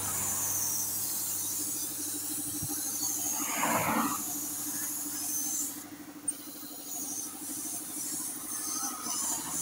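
Gravity-feed air spray gun hissing as it sprays paint, over a steady low hum. A louder short rush comes about three and a half seconds in. The hiss breaks off briefly about six seconds in, with a single click just after.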